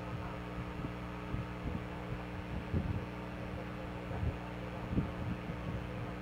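A steady low electrical-sounding hum made of several held tones, with soft low thumps at irregular intervals.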